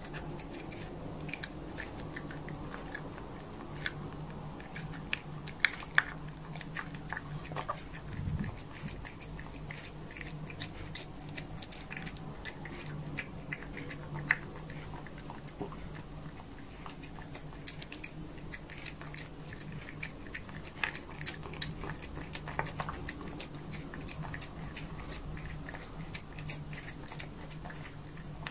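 A cat eating soft food up close: a steady run of small wet clicks and smacks from its chewing and licking, with a few louder clicks, over a faint steady low hum.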